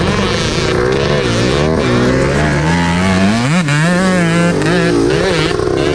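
Dirt bike engines running close by, the revs climbing and dipping with the throttle, highest about three and a half seconds in.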